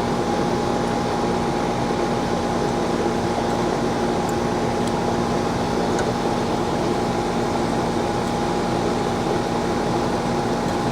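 Central air conditioning condensing unit running: a steady hum with constant fan noise underneath, unchanging throughout.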